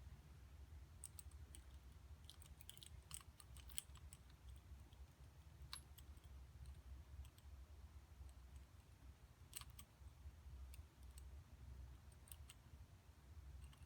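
Near silence: a steady low hum with faint, scattered small clicks, a cluster of them in the first few seconds and a few more later on.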